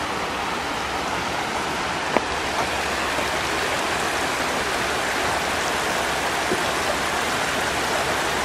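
Muddy floodwater in a flooded wadi, rushing steadily over and around rock shelves, with a brief tick about two seconds in.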